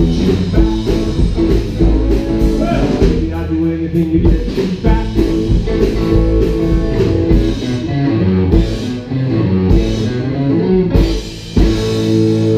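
Live rockabilly band playing an instrumental passage: electric guitar over electric bass and a drum kit. About 11.5 s in the playing breaks off briefly and comes back as one sustained, ringing chord.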